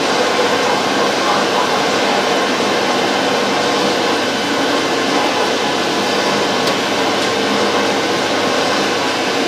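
Steady rush of air and flame from a Greenheat Airmax forced-air boiler: the blower drives air into the burner bed, and the fire burns hard, with an occasional faint tick.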